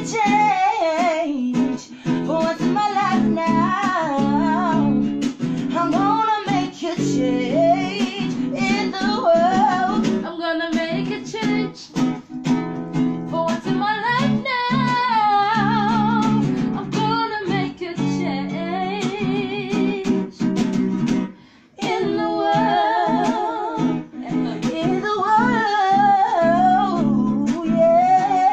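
A woman singing with a wide vibrato, accompanied by a guitar. The music breaks off for a moment about three-quarters of the way in, then resumes.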